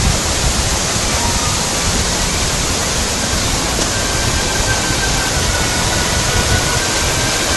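A powerful waterfall pouring heavily: a steady, dense rush of falling water that never lets up.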